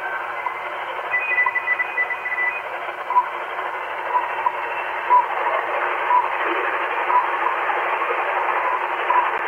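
Shortwave receiver tuned just above 10 MHz in AM, heard through its speaker: a steady, narrow-band static hiss with faint short pips about once a second, the seconds ticks of the WWV time signal on the neighbouring frequency. A faint higher tone sounds briefly about a second in.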